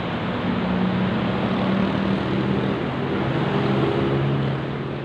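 Road traffic: a vehicle engine's hum, shifting in pitch, over steady road noise, beginning to fade out near the end.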